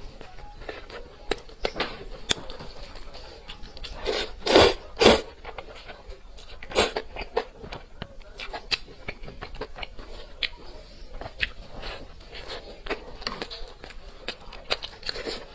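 Close-miked eating sounds: chewing with many small, sharp mouth clicks and smacks, and two louder bursts about four and a half and five seconds in.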